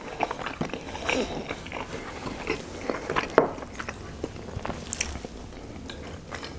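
Close-miked chewing of soft steamed chicken momo: wet mouth smacks and many small sharp clicks, one louder than the rest about three and a half seconds in.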